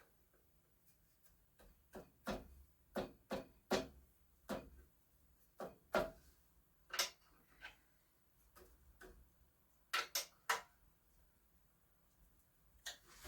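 Sparse, irregular light clicks and knocks, about a dozen spread over the stretch, with near silence between them; no motor is running.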